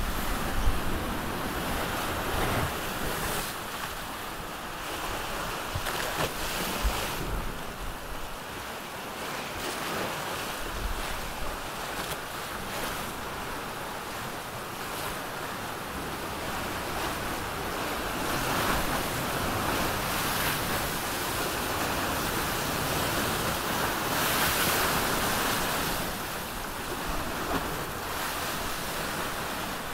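Sea rushing and splashing past the hull of a trimaran under sail, with wind buffeting the microphone. The water noise swells louder past the middle and eases near the end.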